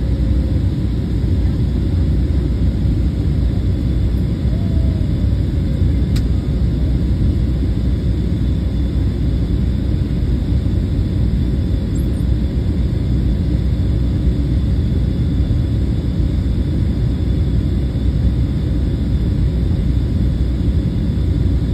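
Steady cabin noise of a Southwest Airlines Boeing 737 on descent: engine and airflow rumble, heaviest in the low end, with a faint steady high whine. A single sharp click about six seconds in.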